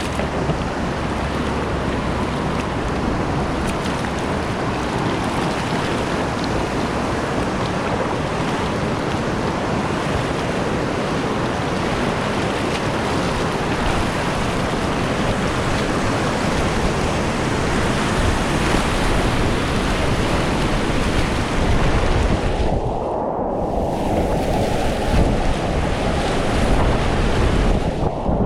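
Continuous roar of fast, pushy whitewater rapids heard from a kayak on the river. The rushing turns muffled for a moment about three quarters of the way through, and again near the end.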